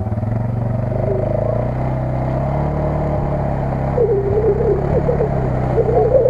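Suzuki KingQuad ATV's single-cylinder engine running under load as the quad sits bogged in mud and water, its pitch rising slightly about a second in. A wavering higher tone joins over the last two seconds.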